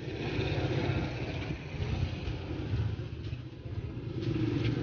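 A motor vehicle engine running nearby, a steady low rumble of street traffic.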